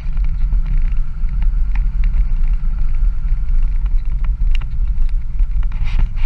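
First-generation Dodge Cummins diesel pickup driving across a field: a steady low rumble of the engine and running gear, picked up from the cab roof.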